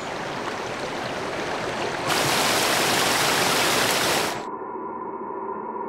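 A small woodland waterfall splashing over rocks in a steady rush, which turns louder and brighter about two seconds in. Near the end the water cuts off and a low, held, gong-like musical tone takes over.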